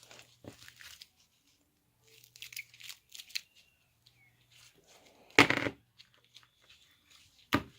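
Rustling, crinkling handling noises of materials being worked by hand, with a loud sharp noise about five and a half seconds in and another near the end.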